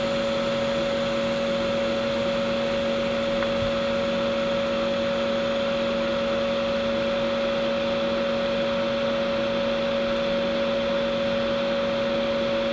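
Small electric fan running steadily: a constant whirring hiss with a steady two-note hum.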